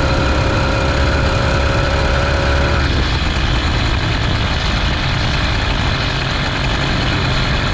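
An engine running steadily over a heavy low rumble, with a steady whining tone that cuts out about three seconds in.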